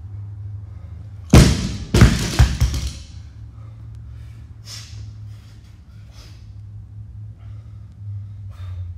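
Loaded barbell with bumper plates dropped from overhead onto a rubber gym floor: a heavy thud about a second and a half in, then a second impact and a few quick rattling bounces as the plates settle.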